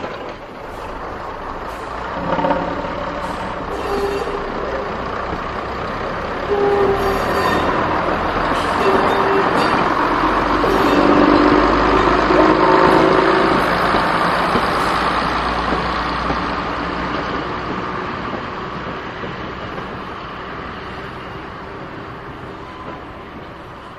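Graham Farish Class 108 N gauge model diesel multiple unit running along the track, a steady running noise that grows louder as it passes close, with a few short held tones over it, then fades as it draws away.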